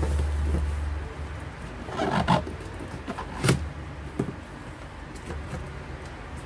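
Cardboard box handled and opened by hand: a dull rumble as the box is shifted on the bench, then rustling and scraping of the cardboard flaps with a sharp click about three and a half seconds in.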